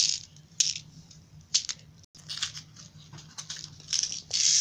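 Small cardboard box of Nerds candy being handled and opened, with scattered short clicks and rustles. Near the end comes a steady rattling hiss as the tiny hard candies pour out.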